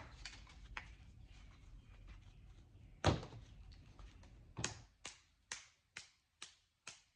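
Sharp knocks of tools striking a small transformer as its copper winding is worked loose from the steel core: one heavy knock about three seconds in, another a little later, then a steady run of lighter taps about two a second.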